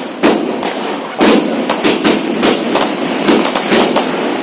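A 240-shot aerial firework cake firing in quick succession: sharp bangs come roughly twice a second over a continuous crackle.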